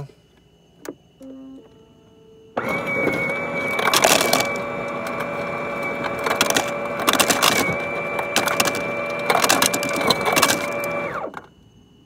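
KitchenAid refrigerator ice dispenser running for about eight and a half seconds: the auger motor hums steadily while ice clatters down the chute into a plastic cup, then it stops suddenly. The repaired auger is turning and delivering ice again.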